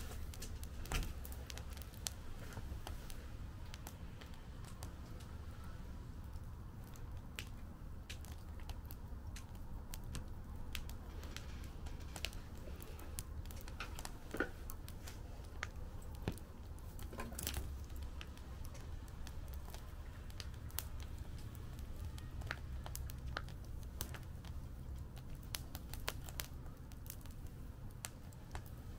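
Wood fire in a fire pit crackling, with irregular sharp pops and snaps, a few louder ones about a second in and in the middle, over a steady low rumble.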